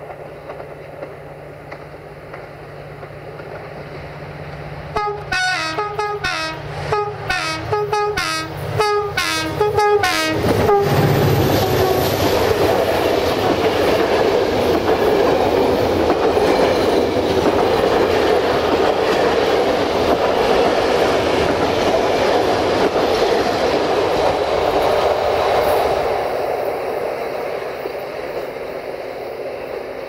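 Locomotive horn sounding a quick run of about ten short blasts in two alternating notes. Then a passenger train passes close by: a loud steady rush of coaches with wheels clicking on the rails, easing off near the end.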